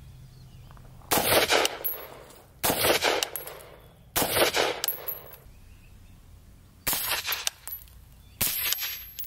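Suppressed AR-style rifle fitted with an AB Suppressors A-10 Warthog suppressor, fired in five quick strings of several shots each. Each string lasts about half a second and is followed by a short echo, with a gap of a second or two before the next.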